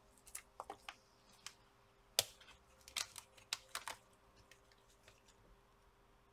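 Faint, scattered small clicks as cable connectors are unlatched and unplugged from a laptop motherboard, the sharpest about two seconds in and a quick cluster around three to four seconds.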